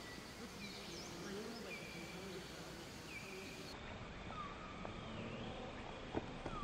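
Wild birds calling from the jungle: many short whistled chirps and quick sweeping notes over a faint outdoor background. A single sharp click comes near the end.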